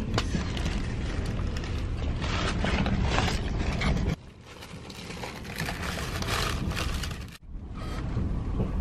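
Passenger train running, heard from inside the carriage: a steady rumble with rattling and clicking from the carriage. The sound drops abruptly about four seconds in, builds back up, and cuts out briefly near the end.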